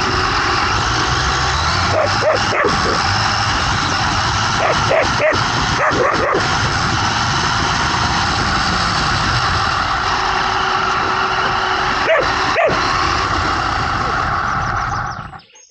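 Electric radio-controlled car running at speed, its motor and drivetrain giving a loud, steady whirring noise, while a chasing dog barks several times, often twice in quick succession. The car's noise cuts off suddenly about a second before the end as it stops.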